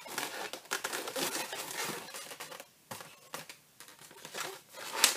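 260Q latex modelling balloons rubbing against each other and against the hands as a finished balloon sculpture is handled, giving irregular rustles and crackles, with a louder rub near the end.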